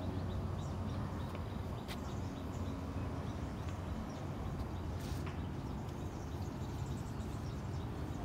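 Open-air ambience: a steady low rumble with faint scattered bird chirps, and two sharp clicks, about two and five seconds in.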